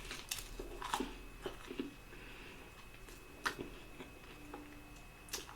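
A person chewing and biting food close to the microphone, with scattered sharp clicks and crunches.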